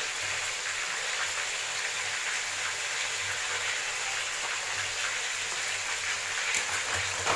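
Mustard-greens paste sizzling steadily in hot oil with fried onions in a kadai, with a steel spatula stirring it.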